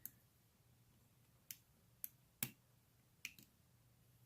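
Lock pick and tension wrench working in a Tri-Max round-body padlock with a loose, sloppy core: about five faint, sharp clicks at uneven intervals as the pins and core are worked.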